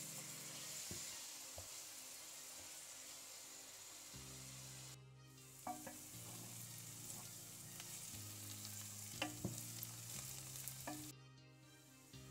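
Chopped onions and carrot sizzling as they sauté in a little oil and are stirred, with a few sharp clicks of a utensil against the pan. The sizzle drops out briefly twice.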